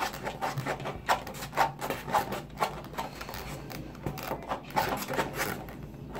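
Plastic spoons stirring and scraping thickening slime of glue, shaving cream and contact solution inside a foam cup and a plastic cup: quick, irregular scrapes and clicks, several a second.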